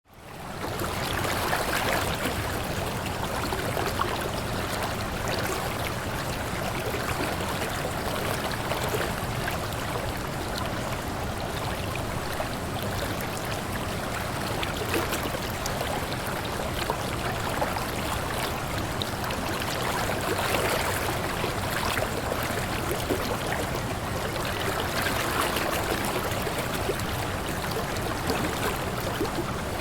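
Waterfall: a steady rush of falling water that fades in at the very start and then holds even.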